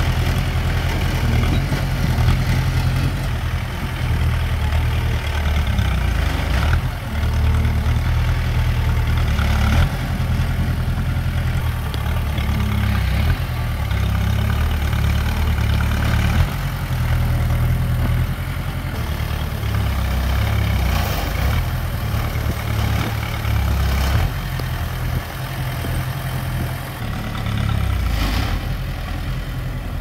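Heavy diesel engine of earthmoving machinery running and working, its low drone swelling and easing with the load, with a few brief knocks.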